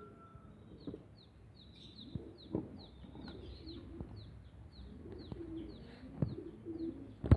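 Lovebird chirping in a rapid string of short, high, falling chirps, about three a second. There are a few light knocks along the way, and a loud thump right at the end.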